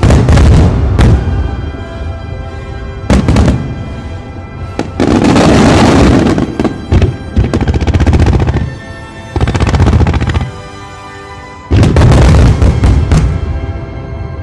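Fireworks display: aerial shells and ground fountains going off in loud bursts every couple of seconds, with music playing over them.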